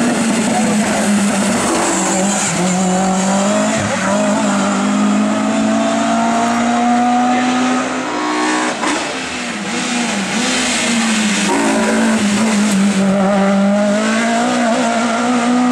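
Hill-climb race car's engine running hard under load, its pitch stepping up and down with gear changes, with a brief lift and quick rev changes about eight to nine seconds in.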